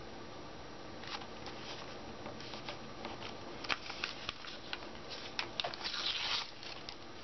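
Paper rustling and rubbing as fingers press and burnish a torn printed page onto wet gel medium on a journal page, with scattered small crinkles and taps. The rubbing is busiest about five and a half to six and a half seconds in.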